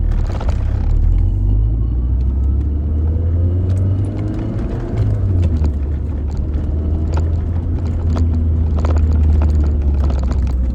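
Lancia Delta HF Integrale Evoluzione I's turbocharged four-cylinder engine running while driving: a low drone whose note rises over the first few seconds, then drops in a step about five seconds in, with scattered light ticks.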